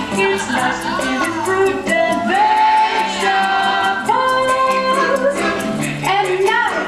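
Show-tune music from an audio-animatronic stage show's soundtrack: several voices singing in harmony over a band, with steady percussion ticks keeping the beat.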